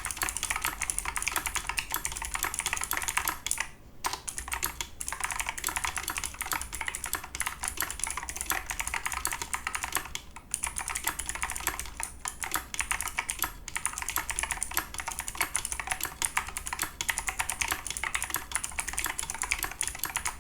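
Fast continuous typing on a Razer Tournament X Chroma mechanical keyboard with clicky Razer Green switches and EnjoyPBT keycaps, its feet raised: a dense stream of sharp key clicks, with brief pauses about four seconds in and about ten seconds in.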